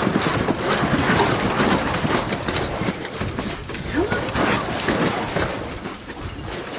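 Homemade wooden dog carpet mill running under a walking dog: the duct-taped carpet belt rolls over ABS-pipe rollers on bearings, making a continuous clatter of knocks with the dog's steps.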